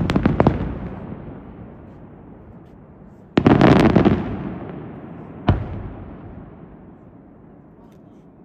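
Aerial firework shells bursting. A quick run of bangs comes at the start, a louder dense cluster of reports about three and a half seconds in, and a single bang about two seconds later. Each burst leaves a long echoing tail that fades toward the end.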